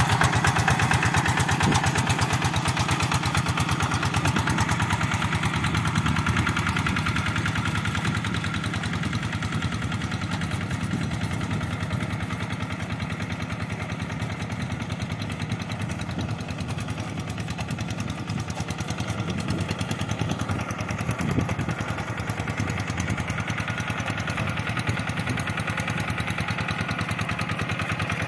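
Kubota RD85 single-cylinder diesel engine of a two-wheel hand tractor running steadily under load while harrowing a flooded rice paddy, its rapid firing pulses even throughout. It gets somewhat quieter through the middle and louder again toward the end.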